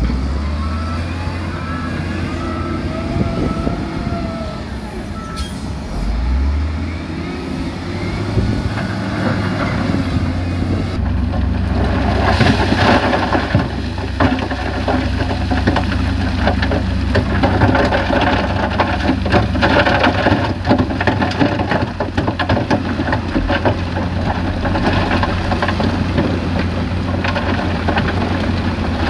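Heavy diesel construction machinery running with a steady low engine drone. From about twelve seconds in, a continuous rattling, crackling rumble of large stones sliding and tumbling joins it.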